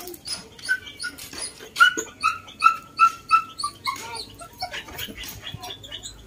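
An animal calling: a run of short, even notes, a few a second, sinking slightly in pitch, with high chirps around it.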